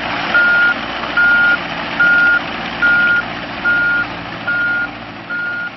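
John Deere 27D mini excavator's travel alarm beeping steadily, about one beep every 0.8 s, over its diesel engine running. The alarm sounds while the machine tracks. The sound grows fainter near the end.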